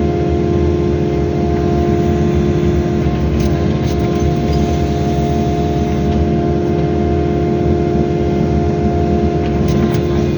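Excavator's diesel engine running steadily while working, with a steady whine over the engine rumble and a few light clicks.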